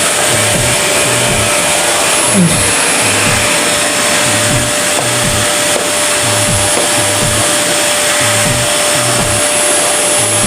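Vacuum cleaner running steadily: a loud rush of air with a steady whine.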